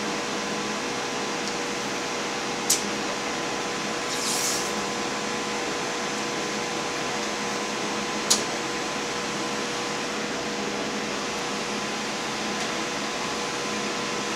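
Blue masking tape being handled and laid across a plastic headlight lens: a short rasp of tape pulled off the roll about four seconds in, and two sharp clicks, over a steady even hiss with a faint hum.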